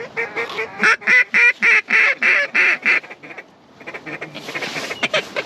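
A duck call blown in a rapid, loud series of about ten quacks that stops about three seconds in.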